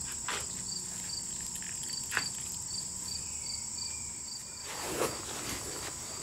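Insects chirping steadily in the background: a constant high drone with a pulsed chirp repeating a couple of times a second. Over it come a sharp wooden click about two seconds in and a brief rustle of wood and bark being handled around five seconds in.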